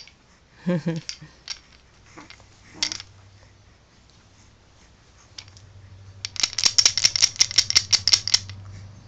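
Wooden ring baby rattle shaken, its wooden beads clacking in a rapid run of about ten clicks a second for some two seconds, starting about six seconds in. Before it come a couple of brief baby coos.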